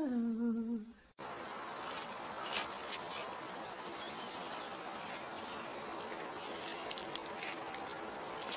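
A short falling pitched sound in the first second. Then a steady hiss with scattered small clicks and scrapes as a bear cub noses and paws at dry, loose dirt.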